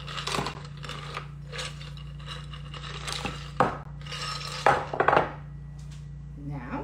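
Ice cubes poured into a cocktail cup, clattering and clinking in several bursts, the loudest about three and a half and five seconds in.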